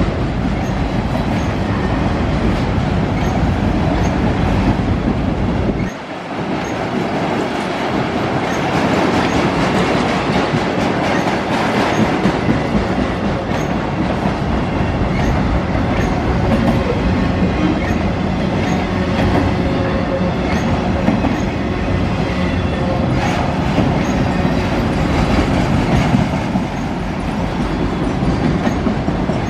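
A long freight train rolling past: a steady, loud rumble of steel wheels on rail with a clickety-clack over the rail joints. The low rumble drops briefly about six seconds in.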